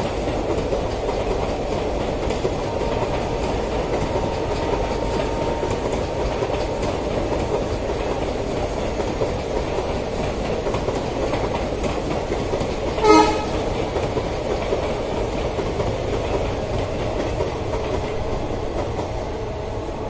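A passenger train rolling past, its wheels giving a steady rumble and clatter on the rails. About two-thirds of the way through, a horn gives one short, sharp toot.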